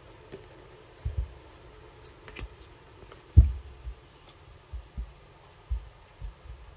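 Handling noise from oracle cards being moved and set down on a surface: a string of soft low thumps and light taps, the loudest about three and a half seconds in.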